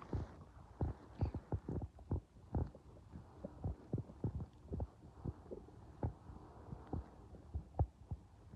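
Empty, hungry stomach growling: an irregular run of short low pops and gurgles, several a second.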